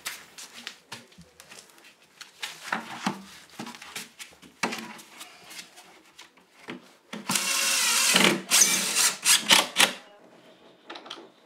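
Knocks and taps as insulation boards are handled and set against the wall, then a cordless drill runs in a few short bursts for about three seconds, the loudest sound.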